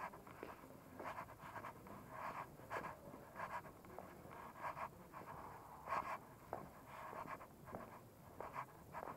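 Soft, uneven footsteps of someone walking on cobblestones, about two a second, over faint street background.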